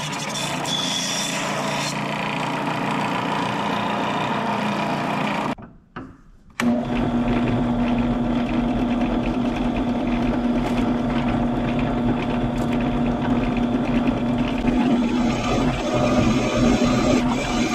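Electric power tool running steadily while working steel for a motor mount. It cuts out suddenly about five and a half seconds in, then starts again a second later with a steady hum.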